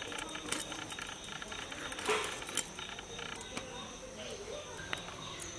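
Hilsa fish being cut and cleaned on the curved blade of a bonti: faint scraping and small clicks as the fish is drawn against the blade, a few of them sharper.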